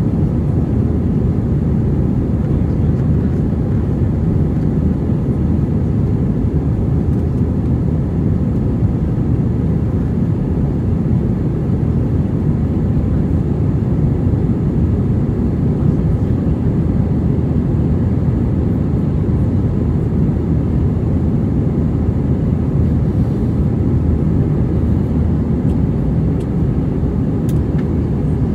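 Steady low roar inside the cabin of an Airbus A320 in flight, heard from a window seat over the wing: engine and airflow noise.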